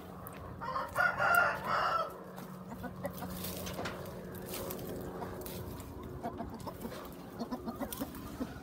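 A rooster crows once about a second in, a loud call lasting about a second and a half. A few short, soft clucks follow near the end.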